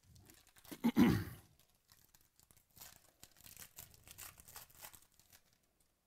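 Foil wrapper of a trading-card pack being torn open by hand: one loud tear about a second in, then softer crinkling as the foil is peeled back from the cards.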